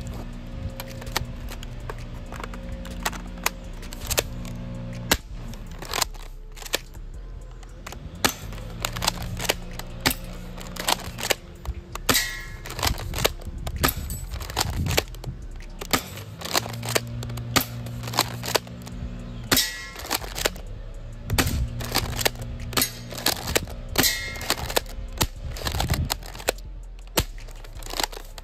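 Double Eagle M56B tri-shot spring airsoft shotgun being pumped and fired again and again: a run of sharp snaps from the shots and the pump being racked, a few a second, with metallic clangs of BBs striking targets.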